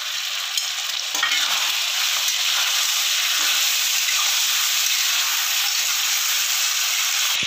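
Chicken pieces frying in butter and oil in a kadai, sizzling steadily as a flat spatula stirs and turns them. The sizzle grows louder about a second in as the stirring gets going.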